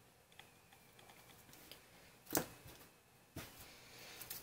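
Faint handling noises as small plants and plastic lids are moved about: a few light ticks and taps, with two sharper clicks about two and a half and three and a half seconds in.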